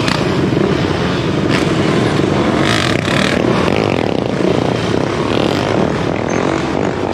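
Motorcycle engine running steadily under a rushing noise, with brief louder rushes about one and a half and three seconds in.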